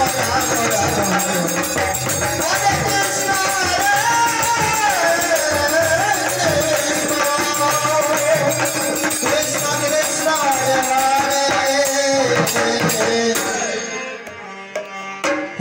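Bengali kirtan ensemble playing an instrumental passage: khol and dhol drums beating, kartal hand cymbals jingling and harmonium carrying a melody. About 14 seconds in the music thins to a few scattered drum strokes, then picks up again.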